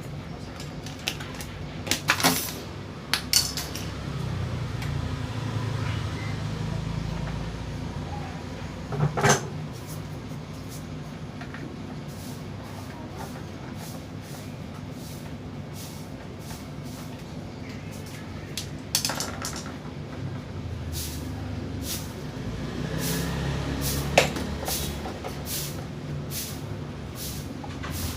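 Scattered clicks and knocks of a Cosmos electric fan's parts being handled and taken apart to get at its stiff, dry motor shaft. Under them a low rumble swells and fades twice.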